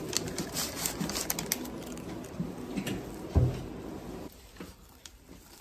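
Paper wrapper crinkling and rustling around a taiyaki as it is bitten into and chewed, with a single thump about three and a half seconds in; quieter after about four seconds.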